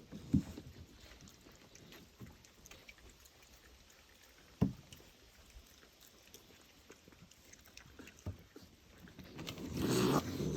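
Raccoons eating snack food, with scattered small clicks of chewing and handling, two sharp knocks, and a louder rustling stretch near the end.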